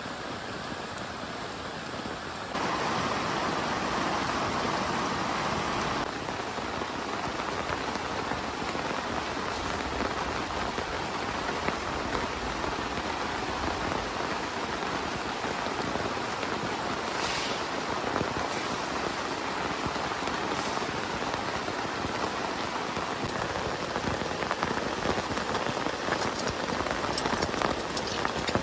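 Heavy rain falling, a dense steady hiss of drops. It jumps louder abruptly about two and a half seconds in and shifts again about six seconds in.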